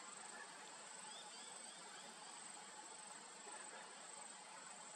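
Faint, steady, high-pitched chorus of insects in the bush, with a few faint short chirps over it.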